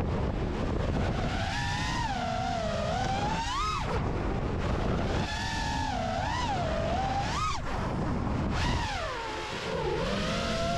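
FPV racing quadcopter's four Ethix Stout 2306 1750 kv brushless motors and props whining, the pitch rising and falling constantly with the throttle and twice climbing sharply, over the rush of wind on the onboard camera's microphone.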